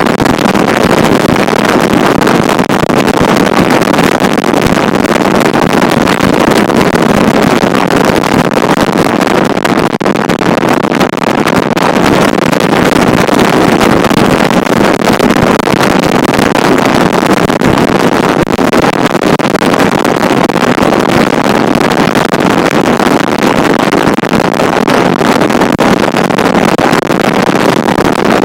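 Loud, steady wind noise on the microphone, which hiding the mic has not kept out.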